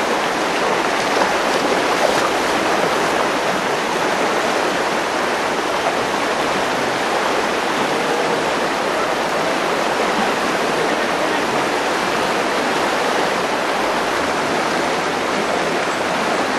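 Mountain river rushing over rocks and small rapids: a steady, even rush of water.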